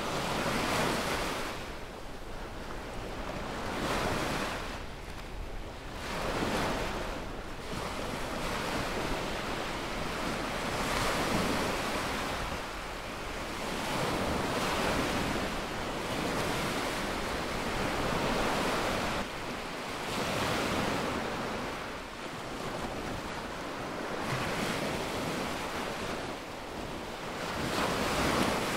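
Small waves breaking in the shallows and washing up a sandy beach. The rush of surf swells and fades every few seconds as each wave comes in.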